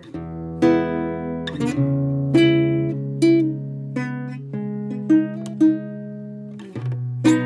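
Background music: a gentle plucked-string melody of separate notes that ring and fade, over held low notes.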